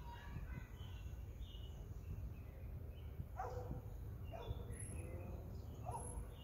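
A steady low rumble of outdoor noise, with short falling animal calls in the distance: two close together about three and a half seconds in, and one more near the end.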